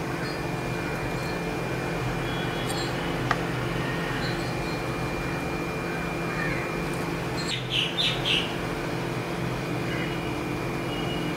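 A few short, high bird chirps about eight seconds in, over a steady hum from a room appliance or fan. There is a single light click a few seconds in.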